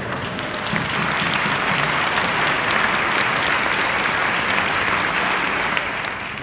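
Large congregation applauding: a dense mass of clapping that swells up in the first second, holds steady, and dies away near the end.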